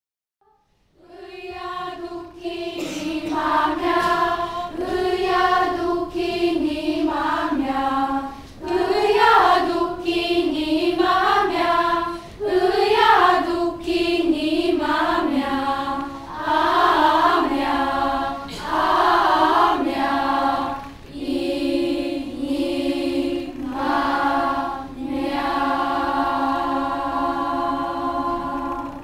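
Children's school choir singing, starting about a second in, in phrases with short pauses between them, and ending on a long held note near the end.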